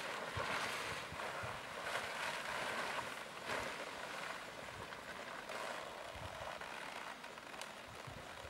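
A plastic tarp rustling and crackling as it is pulled off a horse and drops to the ground. The rustling swells several times in the first half and dies down near the end.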